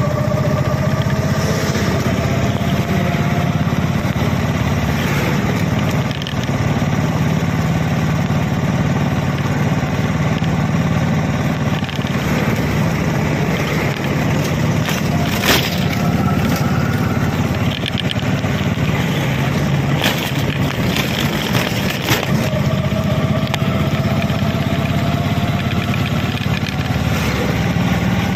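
Engine and road noise heard from inside a moving vehicle's cabin: a loud, steady drone, with the engine note climbing slowly as it speeds up near the start and again near the end. A few short knocks around the middle.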